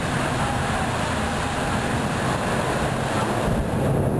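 Steady rushing noise of a thunderstorm, with a low rumble that swells near the end.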